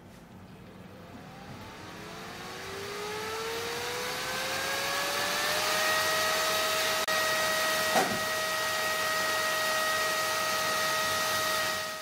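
A powerful 12-volt DC cooling fan rated at over 100 CFM spins up from a standstill. A rising whine and rush of air grow louder and level off at full speed about six seconds in, then run loud and steady. A small tap comes about eight seconds in.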